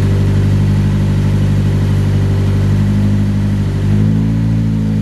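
Nissan 240SX's engine running at idle, its revs rising a little about four seconds in.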